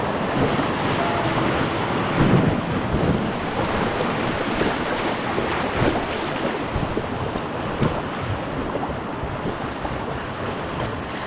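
White-water river rapids rushing steadily around a raft, with wind buffeting the microphone and a louder surge of water about two seconds in.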